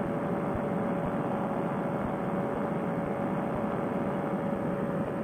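Fresh Breeze Monster paramotor engine running steadily at cruise power in flight, a constant drone with a steady hum in it, mixed with wind rush.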